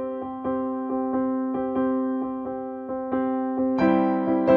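Background piano music: soft, evenly repeated notes over a held chord, growing louder and fuller about four seconds in.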